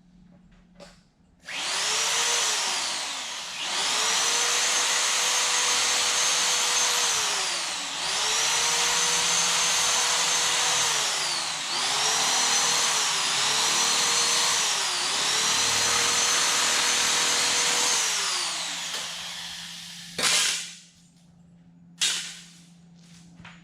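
High-speed handheld power tool spinning up to a steady whine under use and winding down, run in about six bursts with short pauses between, followed by a few sharp knocks near the end.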